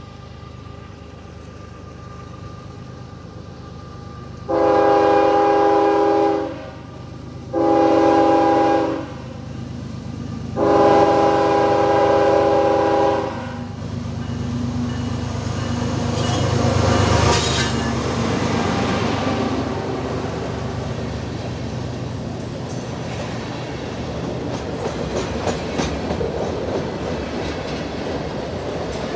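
CSX ES44AH diesel locomotive's multi-chime air horn sounding three blasts for a grade crossing: two of about two and one and a half seconds, then a longer one of nearly three seconds. The locomotive's GE V12 diesel then rumbles past, loudest about 17 seconds in, followed by covered hopper cars rolling by with wheels clicking over the rail joints.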